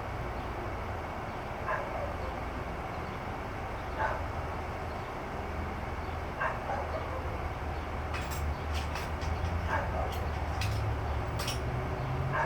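A dog barking at an even pace, about once every two seconds, over a steady low rumble. A run of sharp light clicks comes in during the last few seconds.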